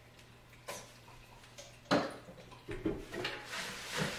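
Small objects being handled: a single sharp knock about two seconds in, then soft, irregular clattering and rustling.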